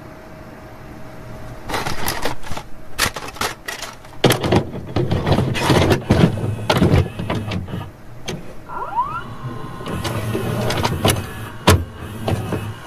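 Logo-reveal sound effects: a dense run of sharp scratching and crackling hits starting about two seconds in, with a brief rising whistle about nine seconds in.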